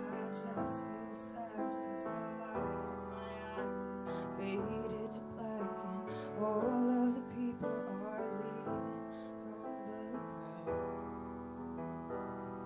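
Grand piano played solo: slow, sustained chords in a ballad.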